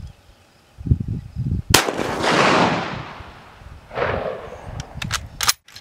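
A single shot from a WWII Japanese Arisaka bolt-action rifle about two seconds in, followed by a long rolling echo that swells again about two seconds later.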